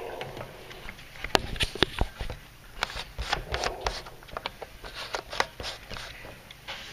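A rapid, irregular series of sharp clicks and ticks, with a short buzz about three and a half seconds in.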